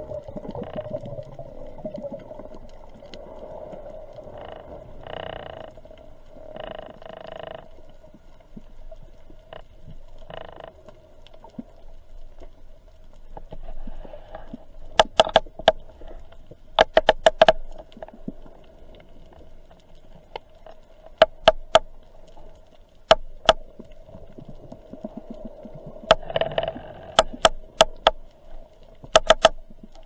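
Underwater fish call: runs of sharp, rapid clicks, several times in the second half, over a steady low hum, with a few short hums earlier, made to draw fish in.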